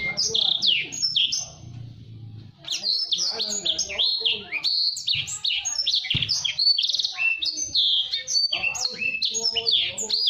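A blacksang, a black-throated canary × sanger canary hybrid, singing a fast, tightly packed song of quick whistled notes sweeping up and down. The song is briefly softer about two seconds in.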